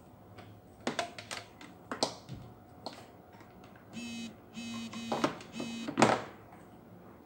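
Sharp clicks and knocks of plastic battery packs, chargers and their cords being handled and set down on a tabletop, the loudest knock about six seconds in. A few short buzzy electronic beeps sound in a row about four seconds in.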